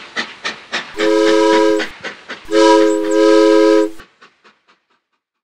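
Steam locomotive chuffing in a steady rhythm of about three beats a second, its whistle blowing twice, a short blast and then a longer one. The chuffing then fades away.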